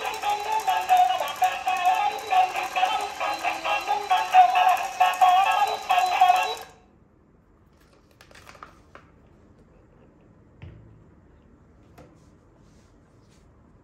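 Electronic tune with synthetic singing from a battery-powered dancing toy robot's small speaker, cutting off abruptly about halfway through. After it stops, only a few faint clicks.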